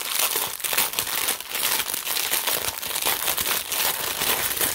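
Plastic packaging of a diamond painting kit crinkling and crackling as it is handled and unwrapped, in a steady run of quick crackles.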